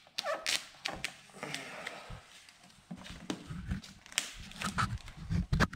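Scattered rustling, rubbing and sharp crackles of vinyl tint film being pressed, lifted and smoothed by hand onto a car tail light.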